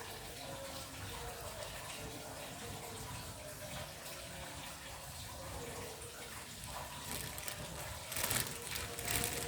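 A pot of about a liter of water heating on the stove toward the boil, giving a steady watery hiss. A few sharp clicks and clatters come near the end.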